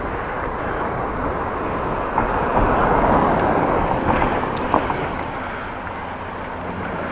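Road traffic noise that swells as a vehicle goes by in the middle, then fades back to a steady background hum.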